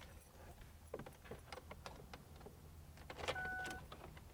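Series of plastic clicks from the buttons and knobs of a newly installed manual HVAC control head in a 2006 Ford Fusion being worked through its settings, followed a little past three seconds in by a short electronic beep.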